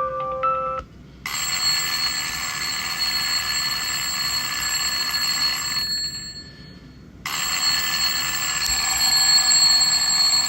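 A short electronic ringtone melody ends within the first second. Then an alarm clock rings continuously, stops for about a second near the middle, and starts ringing again.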